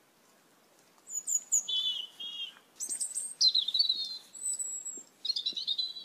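Asian glossy starling calling: several short phrases of high, sharp chirps and whistled notes, starting about a second in.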